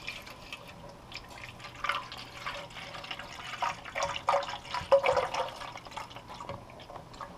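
Water being poured into the water tank of a Crane ultrasonic cool mist humidifier: an uneven splashing that grows to its loudest about five seconds in, then eases off.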